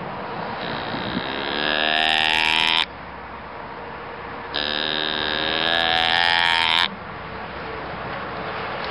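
Two doe bleats blown on a Gooseman cocobolo-wood reed deer call. Each lasts about two seconds and cuts off sharply. The first slides up in pitch at its start; the second holds steady.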